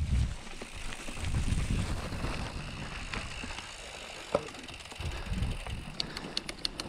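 Full-suspension Canyon Neuron mountain bike rolling downhill over a wet, leaf-covered trail: uneven low rumbling from the tyres on the ground, with the bike rattling and clicking, in a quick run of sharp clicks near the end. The clatter is loud enough that the rider fears the bike will reach the bottom shaken apart.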